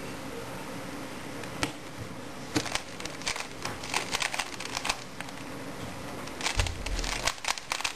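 Plastic 3x3 Rubik's cube being turned fast by hand in a speedsolve: its layers click and clatter in quick irregular runs, beginning about two and a half seconds in after one lone click, over a steady background hiss. This is the solve's cross and first-two-layers stage. A brief low thump comes about two-thirds of the way through.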